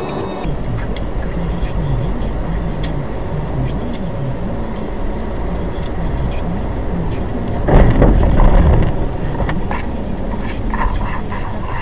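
Car recorded by its dash cam while driving: a steady low rumble of engine and road noise, the engine note rising and falling. About eight seconds in comes a sudden loud, noisy burst lasting about a second.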